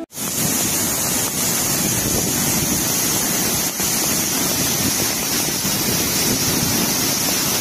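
Waterfall in heavy flood, a steady rush of falling water swollen by cyclone rains.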